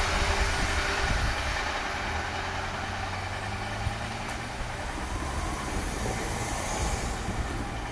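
Rumble of a JR 117 series electric multiple unit moving away after passing, fading steadily.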